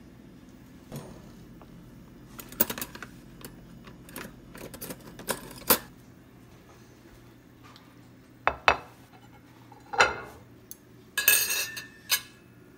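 Scattered clicks, knocks and clatters of a plastic food container and dishes being handled in a kitchen, with a brief crackly rustle of plastic near the end.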